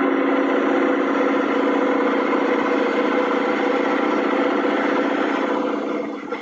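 Submerged arc welding machine running: a steady, loud mechanical hum and buzz that starts abruptly and fades out near the end.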